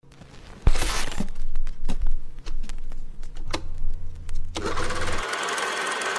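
Old cine film projector clattering, with scattered clicks and pops of film crackle over a low hum. Music comes in about four and a half seconds in.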